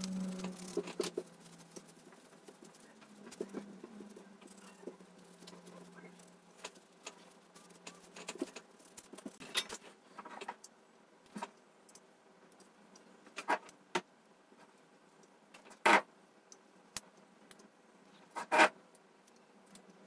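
Scattered light clicks and taps of small hand tools handled over a circuit board, with two sharper clicks in the last few seconds. A faint low hum fades out in the first half.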